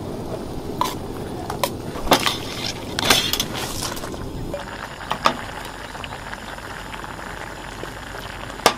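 Scattered clinks and knocks of dishes and cooking utensils over a steady rushing hiss.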